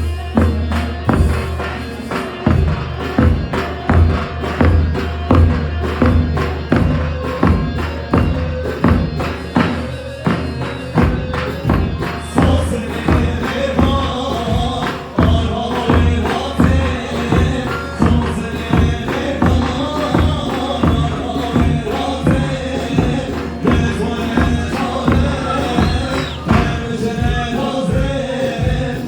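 Live wedding dance music with a steady, heavy drum beat. About twelve seconds in, a melody line comes in over the beat.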